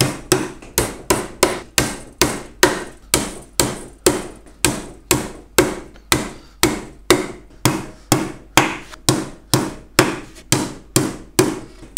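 Hammer driving lost-head wire nails into the wooden corner joint of a beehive brood box, in a steady run of sharp blows about three a second.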